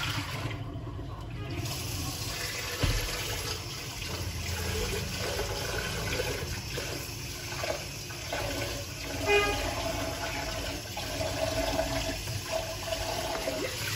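Water being poured back and forth between a white ceramic mug and a stainless steel cup, a steady splashing and trickling. A cup clinks about three seconds in, and a short higher-pitched sound comes about nine seconds in.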